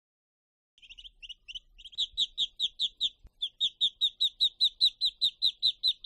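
Ducklings peeping: a rapid string of short, high chirps, about five a second. It starts faint about a second in, grows louder, and has a brief break near the middle.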